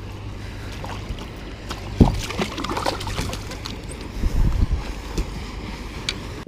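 Waves from passing boat wakes slapping and splashing against a fishing kayak's hull as it rocks, over a steady low rumble. There is a sharp knock about two seconds in and a cluster of knocks and splashes around four to five seconds.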